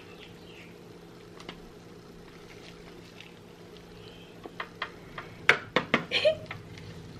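Thick white cheese sauce poured from a plastic tub over a smoked turkey leg, with gloved hands handling it. It is quiet at first, then gives a run of sharp wet splats and smacks in the second half, the loudest about five and a half seconds in, over a steady low hum.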